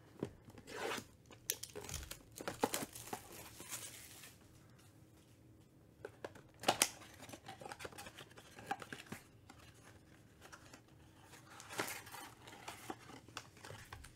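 Plastic shrink wrap being torn and crinkled off a cardboard trading-card blaster box, then the box being opened and handled: irregular rustles and clicks, with a quiet pause about five seconds in and a sharper snap about seven seconds in.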